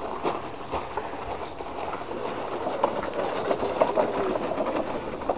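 Small wheels of a homemade wooden go-kart rolling and rattling over gravel and paving as it is towed by a rope, a steady run of clicks and crunches.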